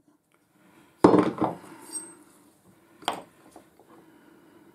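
Steel parts of a lathe live centre clattering on a wooden workbench as the loosened shaft and bearing come free of the body. A rattling clatter comes about a second in, then a short metallic ring, and a single sharp clink about three seconds in.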